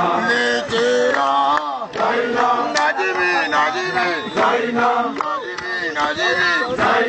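Kilimanjaro porters singing a chanted song together in chorus.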